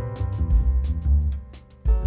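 Background music: sustained chords over a heavy bass line and drum beat, dropping away briefly near the end before coming back in.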